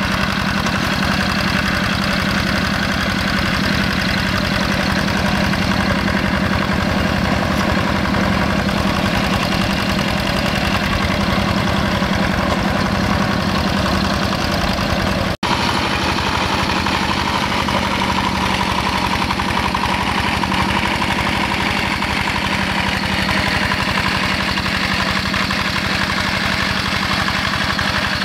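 Yanmar single-cylinder diesel engine of a two-wheel hand tractor, running steadily under load with a fast, even chugging beat while its cage wheels plow a flooded rice paddy. About halfway through the sound cuts out for an instant and then resumes.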